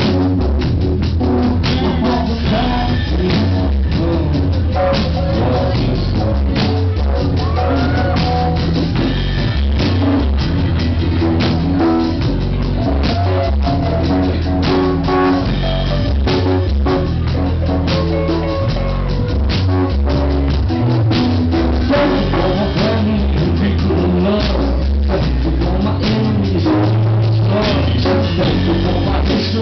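Live rock band playing loud and steady: electric guitar and a drum kit with a steady beat, and a male singer at the microphone.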